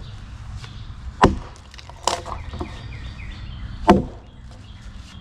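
A hand tool striking wood in a few separate sharp blows, irregularly spaced, the loudest about four seconds in.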